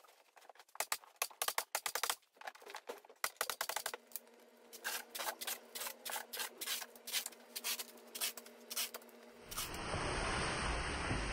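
Packing tape crackling and screeching as it is pulled off a handheld tape gun to seal a large cardboard shipping box. Near the end a steady rushing noise cuts in suddenly.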